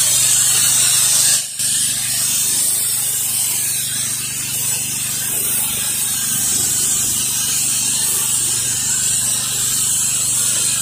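Pressure washer wand blasting water onto a concrete driveway: a steady hiss of spray over the machine's constant hum, with a brief break about a second and a half in.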